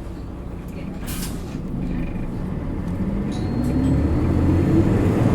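Isuzu Erga Mio bus engine heard from on board, pulling hard under acceleration, its pitch and loudness rising steadily over the last few seconds. A short hiss of air comes about a second in.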